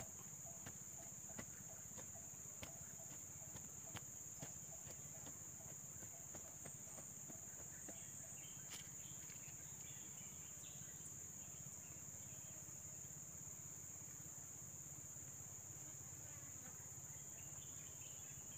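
Steady high-pitched insect drone. In the first five seconds there are soft knocks, about one every two-thirds of a second, as a hand tool is jabbed into the soil to dig a planting hole.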